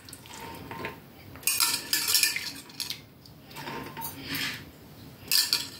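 Soaked chana dal dropped by the handful into a pressure cooker of raw chicken pieces, the wet grains falling and rustling in three short bursts, with the light clatter of handling in the pot between them.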